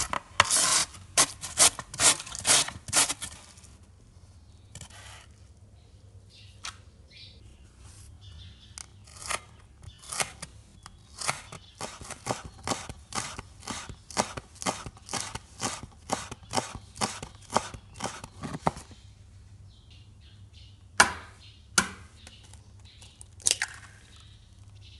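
Carrot rasping on a metal box grater in quick strokes, about two a second. After a short pause, a knife chops green onions on a wooden cutting board in a long, even run of crisp chops, then stops. Near the end an egg is knocked sharply on a bowl two or three times and cracked open.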